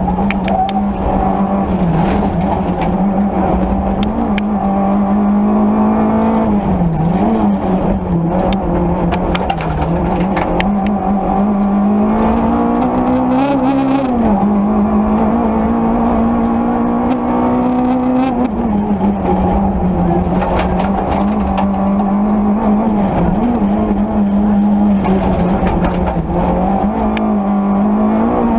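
Peugeot 205 Rallye rally car's four-cylinder engine running at high revs, heard from inside the cabin. The revs drop and climb again several times, with scattered sharp clicks.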